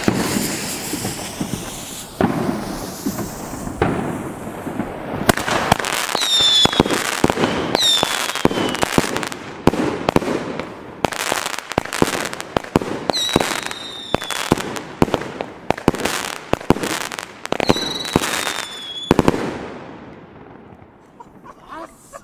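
Pyro Factory 'Troublemaker' firework cake firing after its fuse hisses: a rapid string of shots and loud salute bangs with crackle, and four whistles that fall in pitch. The firing stops about 19 seconds in, leaving a fading tail.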